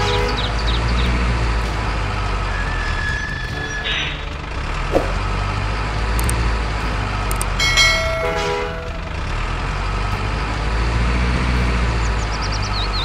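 RC dump truck engine sound running steadily as a low diesel-truck rumble, with a few short horn toots, the loudest a little past the middle.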